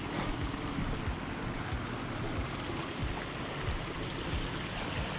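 Steady rushing noise of flowing water, with wind buffeting the microphone in irregular low rumbles.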